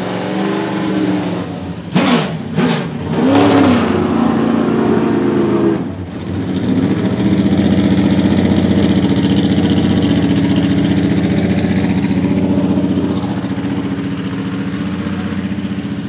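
Holden VE Commodore V8 Supercar's naturally aspirated 5.0-litre V8 running, blipped several times in quick succession about two seconds in, the revs rising and falling sharply. It then settles into a steady, loud idle that eases off a little near the end.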